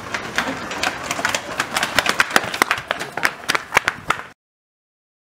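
Quick footsteps of a person running on concrete, about five or six steps a second, getting louder as they come closer, then the sound cuts off suddenly.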